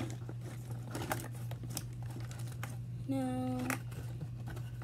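Cardboard and plastic toy packaging crinkling and clicking as it is handled and pried at to free the toy. A brief voiced hum comes about three seconds in.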